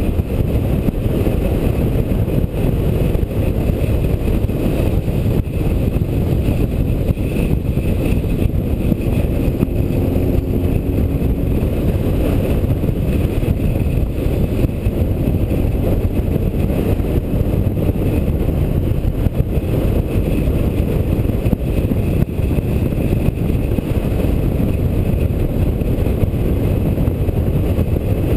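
Yamaha XJR motorcycle riding along with its air-cooled inline-four engine running steadily, mixed with the steady rush of wind buffeting the on-board microphone.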